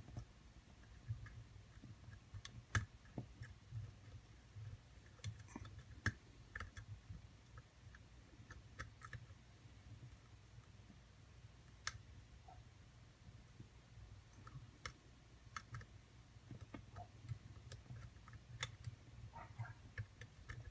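Faint, scattered clicks of a lock pick and tension wrench working the spool pins of a custom ABUS padlock, which is held in a deep false set with its core being turned back and forth.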